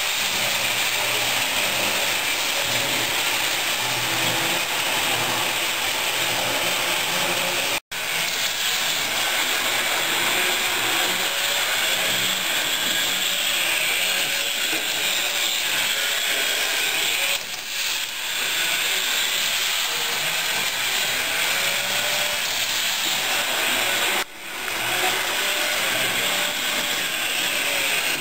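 HO-scale model train running on its layout, a steady whirring hiss of motor and wheels on the track. It drops out for an instant about eight seconds in and dips briefly twice later.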